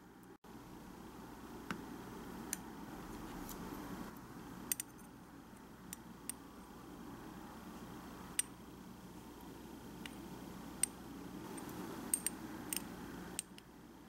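Metal tweezers clicking and tapping against small ceramic dishes, with light scraping as a tiny pork cutlet is dredged in flour. The clicks are sharp and scattered, about ten of them, several close together near the end, over a low steady hum.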